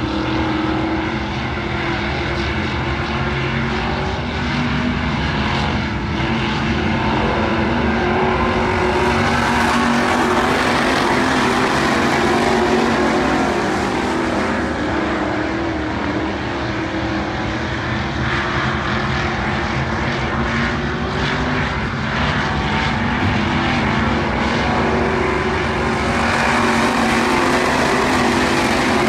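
WISSOTA Midwest Modified dirt-track race cars' V8 engines running at speed around the oval: a steady, loud engine drone that swells a little about ten seconds in and again near the end.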